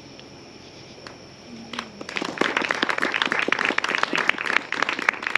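Quiet room noise, then an audience breaking into applause about two seconds in, with dense, uneven clapping.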